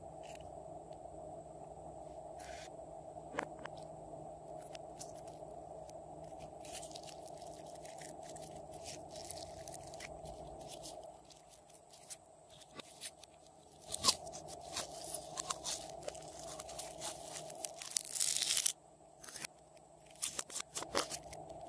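Glossy slime being worked and squeezed by hand, giving crackling, crunchy clicks and pops. These start several seconds in, grow denser, and peak in a dense crackle that cuts off suddenly near the end, over a faint steady hum.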